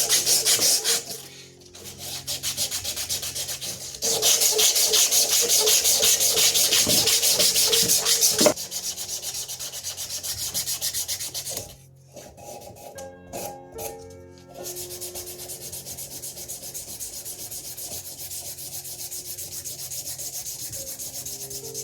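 Strip of 220-grit sandpaper worked back and forth by hand across a knife handle in rapid strokes, hand sanding the handle smooth. It is loudest in the first second and from about 4 to 8.5 s, breaks off briefly around 12 s, then goes on more softly.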